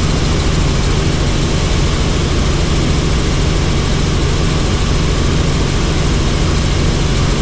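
Helicopter in flight: steady, loud rotor and engine noise with a rapid low pulsing from the blades.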